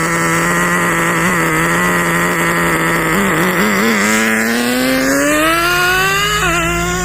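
18CXP nitro engine of an HSP 94102 Sonic RC car running steadily, then revving up with a rising whine. The pitch drops suddenly near the end and climbs again, as the two-speed gearbox shifts up.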